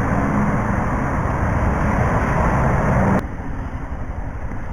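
Motorcycle riding at low speed: a steady engine hum under wind and road noise, picked up through an action camera's external microphone. The noise drops suddenly about three seconds in.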